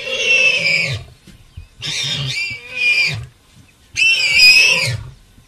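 Warthog squealing in distress, trapped in its burrow by a lion: four loud, high-pitched squeals with wavering pitch, the last and loudest about four seconds in.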